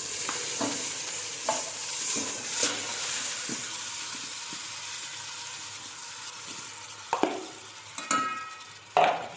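Wet homemade butter spooned with a steel ladle into a hot steel pot, sizzling as it lands; the hiss slowly fades. The ladle scrapes and knocks against the bowl and pot, with a ringing metal clink near the end.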